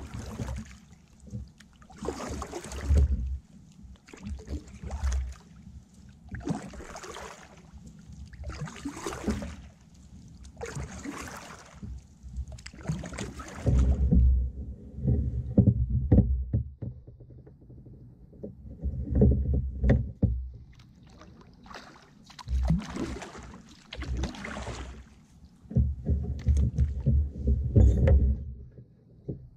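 Kayak paddle strokes in calm, shallow water: a splash and drip about every two seconds. In the second half the strokes come with low rumbling knocks.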